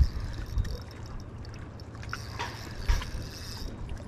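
Small waves lapping against a rocky lakeshore, with wind rumbling on the microphone and a few low thumps, the loudest near the start and about three seconds in.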